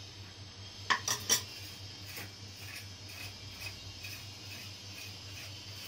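A steel spoon knocking three times in quick succession against a clay cooking pot about a second in, followed by faint light ticks over a low steady hum.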